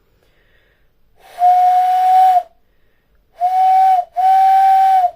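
Hand whistle: breath blown over the knuckles of tightly cupped palms, giving three breathy hooting notes at one steady pitch, a longer one followed by two shorter ones close together.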